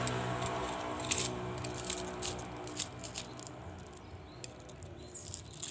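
Scattered light clicks and taps of PVC pipe pieces and an aluminium tube being handled and slid together.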